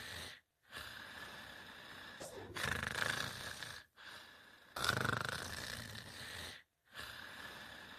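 Cartoon character snoring: a raspy, rumbling snore repeated several times, each rising to a louder drawn-in snore and then easing off. Short dead silences fall between some of the snores.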